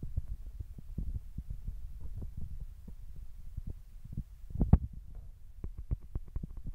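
Low, uneven rumbling and thumping from inside a safari jeep, the vehicle's running engine and knocks on the phone's microphone. A louder knock comes about two-thirds of the way through, followed by a quick run of light clicks.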